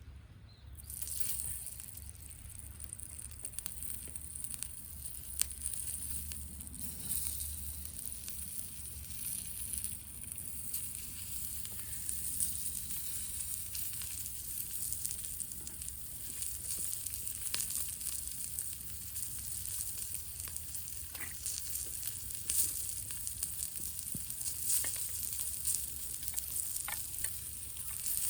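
Meat sizzling on a grill over a wood fire, a steady high hiss with scattered small crackles and pops, starting about a second in.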